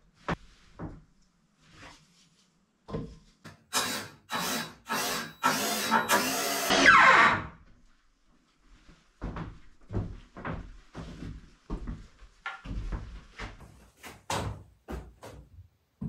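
A drill working wood in a few short bursts about half a second apart, ending with a falling whine as the motor winds down. This is followed by a string of wooden knocks and thumps as boards are handled and set down.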